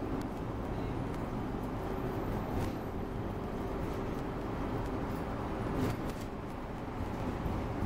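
Cabin noise of an Alexander Dennis Enviro200 MMC single-deck bus cruising: a steady low engine and road rumble, with a faint steady whine through the middle and a few light rattles.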